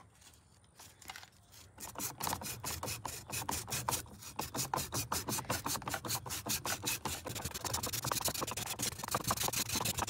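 120-grit sandpaper rasping back and forth through the plastic seatbelt guide slot in quick repeated strokes, starting about two seconds in, smoothing the top edge where the stiff belt catches and fails to retract.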